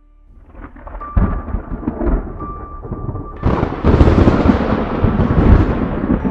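Thunder sound effect: a rumble builds with heavy booms, then a loud crash of thunder about three and a half seconds in that keeps rolling.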